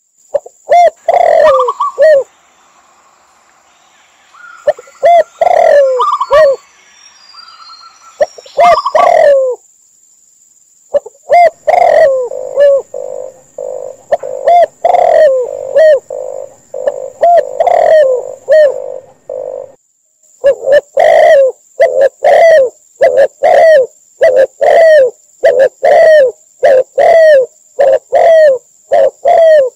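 Mixed recordings of spotted dove, red collared dove and zebra dove calling: loud, repeated cooing notes that come in quick runs, growing faster and more regular in the second half.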